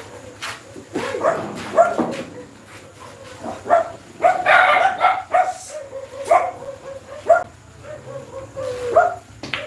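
A dog barking repeatedly, in short barks about a second or so apart.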